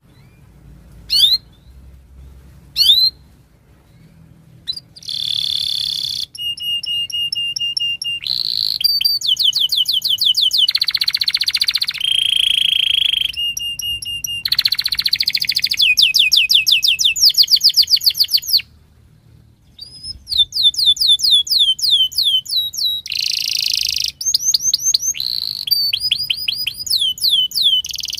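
Domestic canary singing: a couple of short chirps at first, then a long song of fast repeated trills and rolling phrases that breaks off for about a second and a half around two-thirds of the way through, then picks up again.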